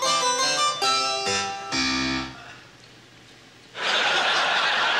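A short phrase of keyboard chords ending on a low final chord about two seconds in. Near the end, audience laughter breaks out.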